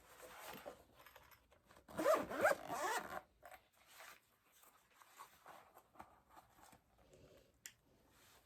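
A zipper pulled open in quick strokes, loudest for about a second from two seconds in, with quieter handling and rustling around it.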